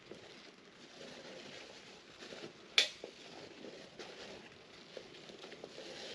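Wood fire crackling in a portable fire pit, with small irregular ticks and one loud, sharp snap a little under three seconds in.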